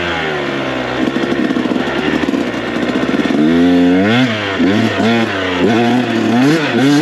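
KTM 125SX two-stroke dirt bike engine running under the rider, fairly steady at first, then revving up and falling back several times from about three and a half seconds in as the throttle is worked.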